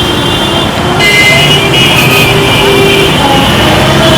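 Busy city street traffic: a steady din of engines and tyres, with held vehicle-horn tones sounding over it from about a second in.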